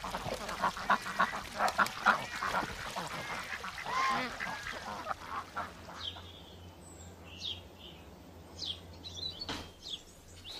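Domestic white geese honking over and over, a busy run of calls for the first five seconds or so. After that, fainter high chirps of small birds, and a single sharp click near the end.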